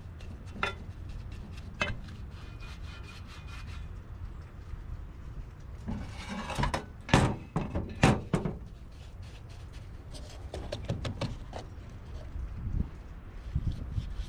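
Paintbrush scrubbing and dabbing a phosphoric-acid rust remover (naval jelly) onto a rusty steel Beetle rear suspension arm: bristles scraping on the pitted metal, with scattered clicks and a few sharper knocks near the middle.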